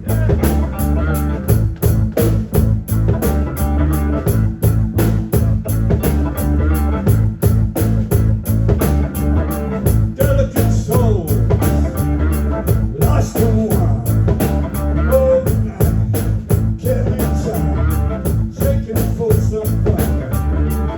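Live rock band playing, with drums keeping a steady beat under bass and melodic lead lines.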